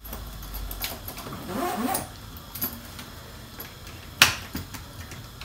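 Handling noise from an object being worked in the lap: faint rustling, with one sharp click about four seconds in.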